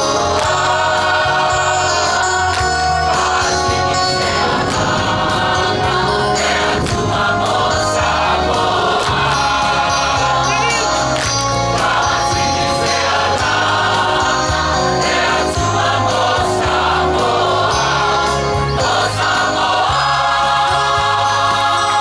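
A group of voices singing together in chorus, several parts at once, over a bass line of low notes that change about once a second.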